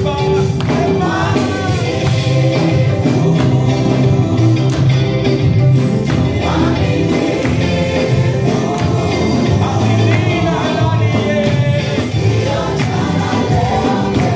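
Live gospel worship music: a choir singing over a steady band accompaniment with bass and percussion.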